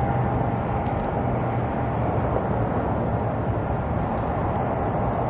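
Steady engine drone: a constant low hum with a steady higher tone above it, over an even wash of noise.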